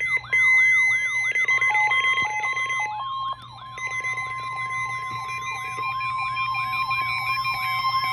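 Weather alert radio test alarm: a siren-like warble rising and falling about two to three times a second, over steady high alarm tones that include the steady NOAA Weather Radio warning tone. Choppy beeping layers in between about one and three seconds in.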